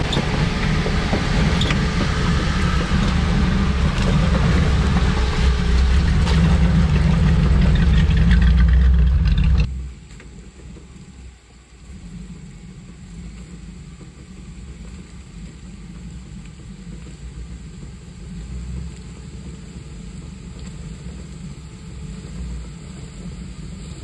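Jeep engine running at low crawling speed close by, with scattered sharp knocks of tyres on rocks. About ten seconds in the sound drops abruptly to the same engine heard much fainter, from farther away.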